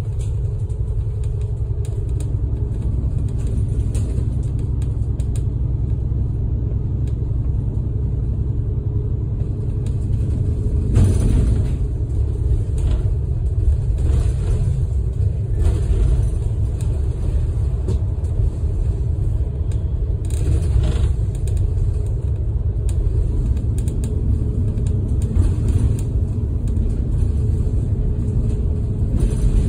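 Steady low rumble of engine and road noise heard from inside a large vehicle cruising on a highway, with a few brief knocks and rattles from the cabin along the way.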